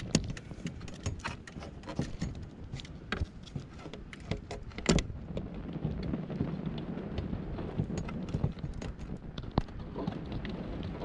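Scattered clicks and knocks of a plastic above-ground pool skimmer being shifted and lined up against the steel pool wall, the loudest about five seconds in. Low wind rumble on the microphone runs underneath.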